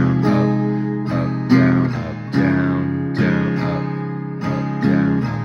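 Acoustic guitar, capoed at the first fret, strummed in a steady down-down-up pattern through the verse chords. Each strum rings on into the next.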